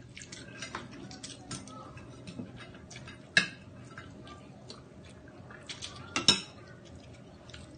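Fork and fingers clicking and scraping on a plate while picking through seafood: a string of light clicks, with two louder clinks about three and a half and six seconds in.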